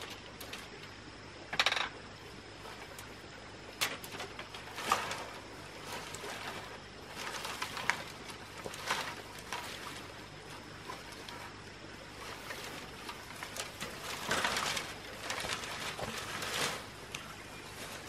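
Thin split bamboo strips rustling and clicking against one another in irregular bursts as they are gathered up by hand.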